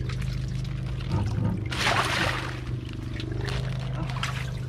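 A brief rush of pouring or splashing water, about two seconds in, over a steady low hum.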